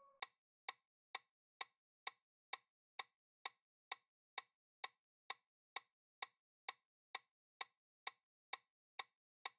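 Quiz countdown-timer sound effect: short, sharp clock-like ticks, evenly spaced at about two a second.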